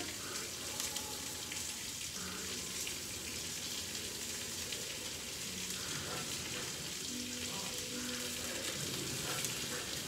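Turkey-bacon-wrapped chicken breasts frying in sunflower oil in an iron skillet, with a steady sizzle.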